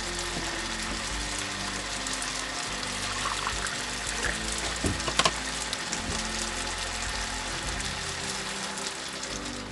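Diced meat frying in a nonstick wok, a steady sizzle, with background music playing over it. A couple of sharp knocks come about halfway through.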